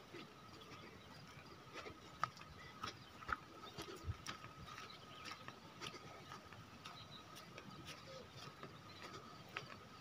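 Faint footsteps on a dirt path: irregular soft ticks and scuffs, over a steady thin high tone.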